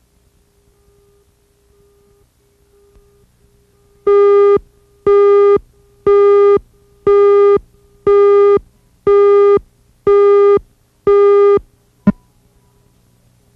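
Videotape countdown leader: eight identical electronic beeps, about one a second, each about half a second long, followed by one very short blip. The tones are loud and clipped, as the tape's audio was recorded very hot.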